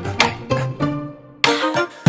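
Background music, with separate notes changing every fraction of a second and a short dip in level about a second in.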